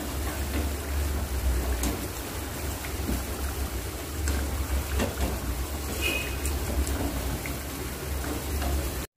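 Samosas deep-frying in hot oil: a steady sizzle and fine bubbling, with a low hum underneath and a few faint clicks. The samosas are fried on a low flame so that the onion filling cooks through.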